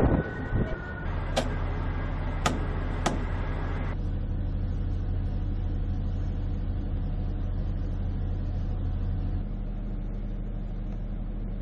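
Steady low hum of a ship's engines underway, with three sharp clicks in the first few seconds. The sound changes abruptly about four seconds in and again near the end.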